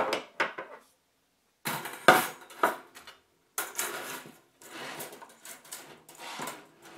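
Metal wire cooking racks and accessories clinking and clattering as they are handled and set down on a wooden table, in a string of irregular knocks with a short silent pause about a second in.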